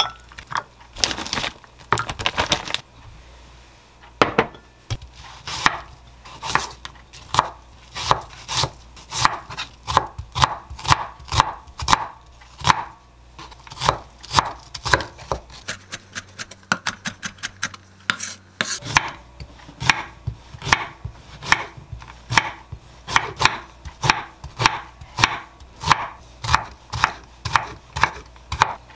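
Chef's knife chopping onion and cucumber on a wooden cutting board: a steady run of knife strikes, about two or three a second, with a pause of a few seconds after the middle.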